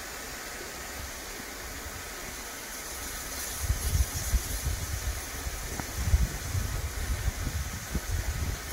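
Steam hissing steadily from a standing LMS Stanier 'Black 5' 4-6-0 steam locomotive, escaping around its cylinders and driving wheels. Irregular low rumbling joins in from about halfway through.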